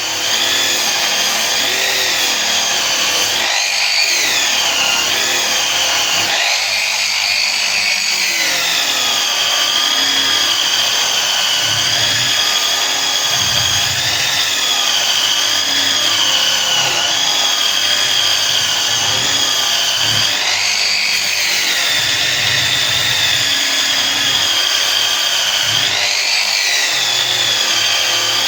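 Power tool spinning a wire brush against metal exhaust tubing. It starts up suddenly and runs steadily, its high whine sagging in pitch each time the brush is pressed into the work, about four seconds in, around seven to eight seconds, around twenty seconds and around twenty-six seconds.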